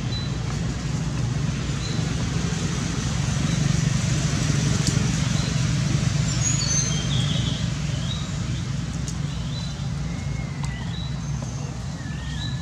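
Steady low rumble of engine or road traffic, swelling through the middle and easing off near the end, with short high-pitched chirping calls repeating every second or so.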